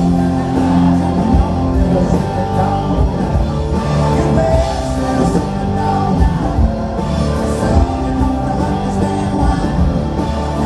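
Rock band playing live, with electric guitars, bass and drums, and a sung vocal.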